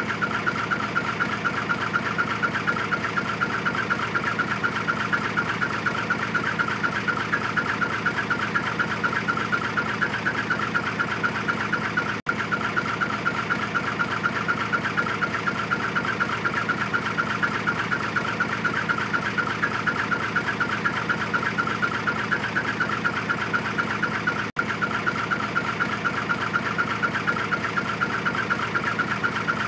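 Hino Profia dump truck's diesel engine idling through its twin-tip ("W") exhaust, a steady, rapid "chun-chun-chun-chun" chirping pulse at the tailpipes. The sound cuts out for an instant twice.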